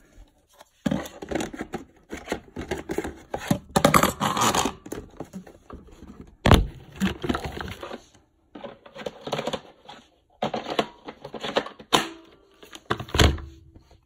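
Rustling, scraping and knocking of handling noise in broken stretches, with one sharp knock about six and a half seconds in.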